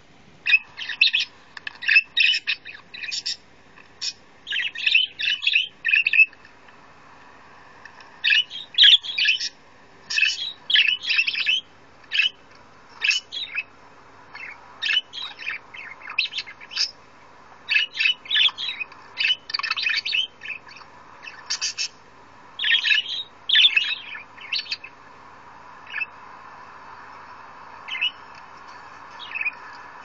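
Parakeet chirping and chattering in quick runs of short, high chirps, with a short pause about six seconds in, growing sparse near the end.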